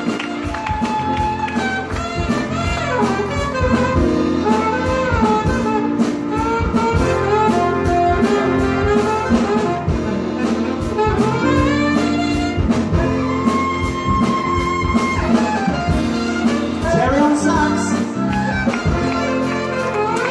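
Live band playing an instrumental jazz-style passage: brass horn lines over a steady drum beat and sustained chords.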